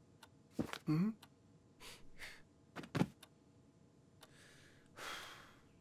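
Cartoon cat's vocal sound effects, made by a human voice: a short pitched call about a second in, a few soft breathy noises and light taps, then a long sigh about five seconds in as the cat flops down to lie on the armchair.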